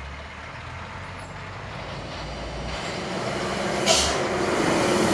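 Loaded Hino truck's diesel engine working hard up a steep hill, growing steadily louder as it approaches. A short, sharp hiss of air comes about four seconds in.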